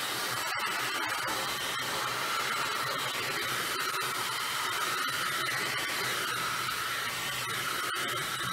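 Handheld heat gun (hot air gun) running steadily on a hot setting, an even rushing blow of air, as it is swept over a 3D-printed model to melt off stringing.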